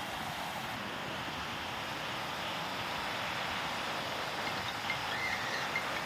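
Small sea waves breaking and washing up a sandy beach: a steady, even rush of surf.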